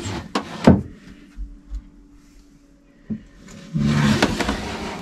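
Cabinet doors and shelves being handled in a small cabin: two sharp knocks within the first second, a single knock about three seconds in, then a rustling scrape near the end.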